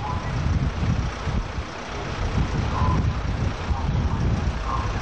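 A vehicle engine running steadily amid dense low outdoor noise, with a few brief faint voices.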